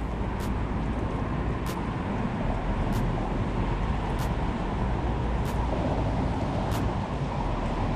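Steady low rumble of road traffic crossing the bridge overhead, with faint high ticks repeating about every second and a quarter.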